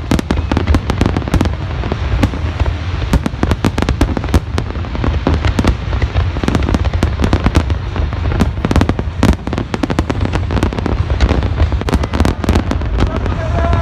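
Large fireworks display: a dense, continuous barrage of shell bursts and crackling bangs, many a second, over a steady low rumble.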